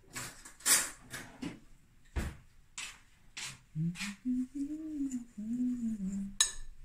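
A metal spoon scrapes and knocks against a glass mixing bowl as flour and water are stirred into a dough, in short irregular strokes over the first few seconds. A person then hums a short wordless tune, and it ends with one sharp clink near the end.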